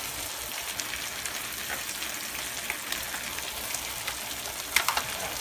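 Beef, carrot and onion stir-fry sizzling steadily in a wok, with scattered small pops and crackles. A short cluster of sharper clicks comes just before the end.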